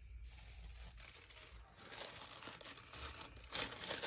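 Thin paper being handled, rustling and crinkling, growing louder near the end.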